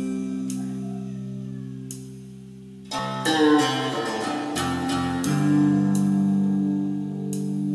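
Guitar music played through Large Advent loudspeakers in new cabinets. A low chord is held, and a louder, brighter run of plucked notes comes in about three seconds in.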